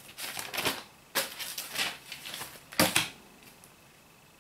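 Handling noise of a tablet on a wooden tabletop: a few short scraping, rubbing sounds, then a sharp tap just under three seconds in.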